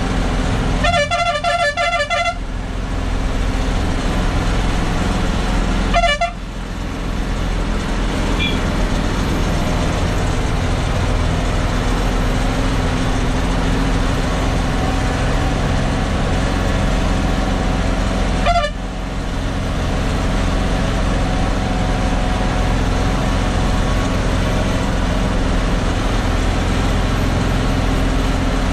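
A truck's diesel engine labouring steadily uphill, heard from inside the cab. A horn sounds for about a second near the start. The engine note drops off sharply twice, about six and eighteen seconds in, then builds again.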